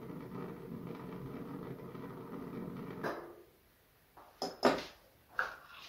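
Butane catalytic gas heater burning with a faint steady hum and hiss, which cuts off abruptly about halfway through, followed by a few faint sharp clicks.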